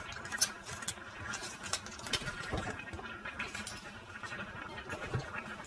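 Thin plastic packaging crinkling and rustling as it is handled, with small irregular crackles and clicks.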